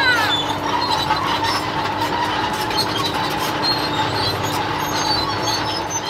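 Cartoon sound effect of a tracked crane driving off: a steady mechanical rumble with a constant tone running through it, fading out at the very end.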